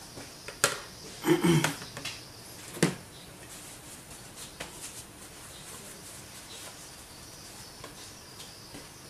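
Metal tweezers clicking against ceramic processors on a hot plate, then set down on a tabletop: a sharp click, a short clatter, a second sharp click, then a few faint ticks.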